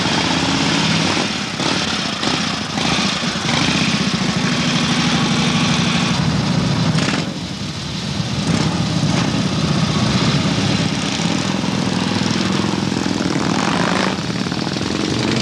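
Several motorcycle engines running close by as the bikes pull away, a loud continuous exhaust sound that dips briefly about halfway through.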